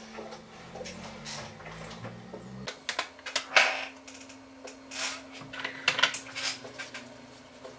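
A plastic dish-soap bottle and a pan handled with bare feet at a kitchen sink: a run of clicks, knocks and short noisy scrapes, loudest a few seconds in.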